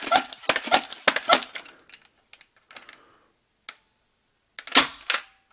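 Buzzbee AirMax 6 air-pressure dart blaster being pumped in quick clacking strokes, about three a second, for the first second and a half. After a pause with a few faint clicks, the shot goes off about five seconds in as a sharp pop, followed by a weaker knock.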